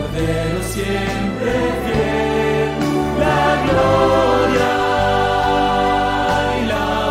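A choir singing a Christian hymn in sustained, flowing lines over steady low accompaniment.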